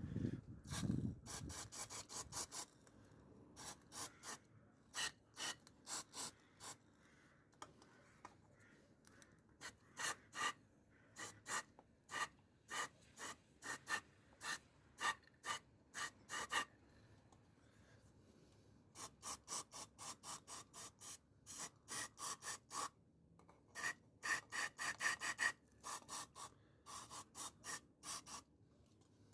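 Repeated short, sharp rasping strokes from hand-tool work on the engine, several a second in uneven runs with brief pauses.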